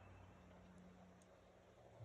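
Near silence: faint outdoor ambience with a low, steady hum underneath.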